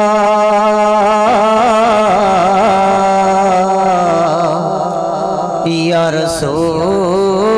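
A man's solo voice singing a naat into a microphone. He holds a long steady note, then about a second in breaks into drawn-out, wavering ornamented phrases.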